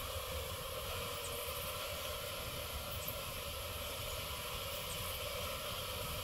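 Honeybees buzzing steadily in a mass from a colony disturbed while its wall hive is cut open for honeycomb, with a few faint ticks.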